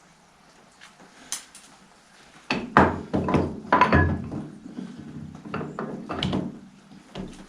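Heavy metal clunks and knocks, faint at first, then a run of loud irregular blows from about two and a half seconds in, as the Fordson Major's bull pinion and final-drive parts are worked and pushed to get them to line up and go back together.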